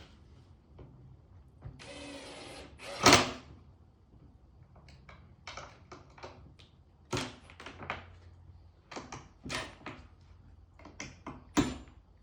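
A power drill whirs for about a second, driving a screw, followed by one loud knock. Scattered clicks and knocks of parts and tools being handled follow.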